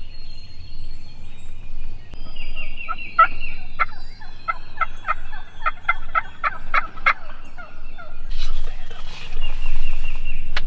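Wild turkey gobbling, with a run of about a dozen sharp, evenly spaced calling notes, roughly three a second, in the middle.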